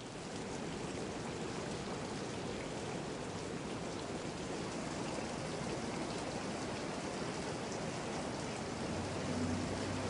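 Rain-swollen, muddy stream rushing steadily, with rain falling. A faint low hum joins near the end.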